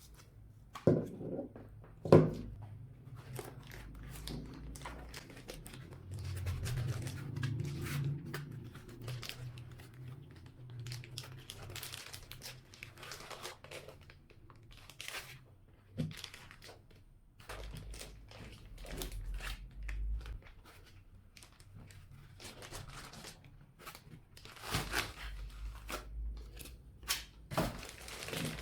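Packaging being torn open and crinkled by hand, with many short rustles and clicks. Two sharp knocks come about one and two seconds in.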